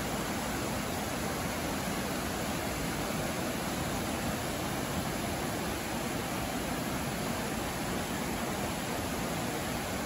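Mountain stream rushing over rocks and small rapids: a steady, even rush of water.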